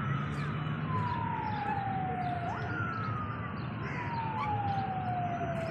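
Siren-like wailing tone that falls slowly in pitch, jumps back up about two and a half seconds in, and falls again.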